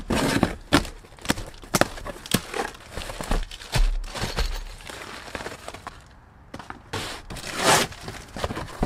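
Unpacking cardboard shipping boxes: a blade slitting packing tape, then plastic-wrapped cable coils and a padded mailer rustling and knocking as they are set down. A loud rustle of cardboard comes near the end.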